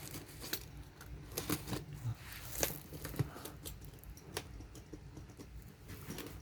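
Cardboard packaging being handled and opened by hand: scattered taps, scrapes and light crinkles, with a few sharper clicks.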